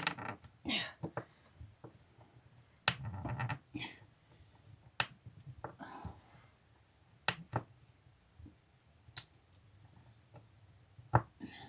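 Scattered sharp clicks and knocks, about half a dozen, a second or two apart, with a few soft rustles: small metal hardware and a tool being handled while curtain-rod brackets are screwed up.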